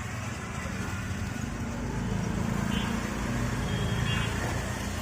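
Busy street traffic: a steady rumble of engines, with a couple of brief high-pitched tones near the middle.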